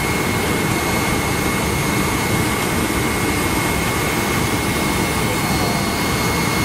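Steady cabin noise of a McDonnell Douglas MD-90 airliner on approach: the drone of its tail-mounted turbofan engines and the rush of air past the fuselage, with a thin, steady high whine.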